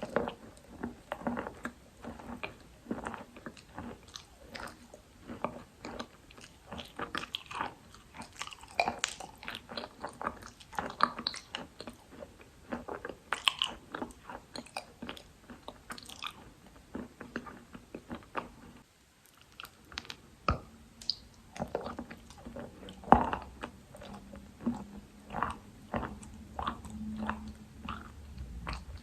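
Someone biting and chewing dry Khrapovsky chalk, with close, irregular crunching and clicking bites. There is a brief pause a little past the middle.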